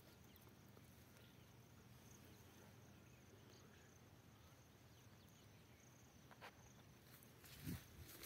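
Near silence: faint outdoor background, with a couple of soft thumps or rustles near the end.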